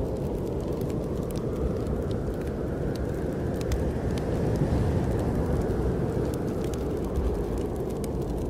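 Snowstorm wind blowing as a steady low rush that swells in the middle and eases off again, with scattered small pops and crackles of a wood fire.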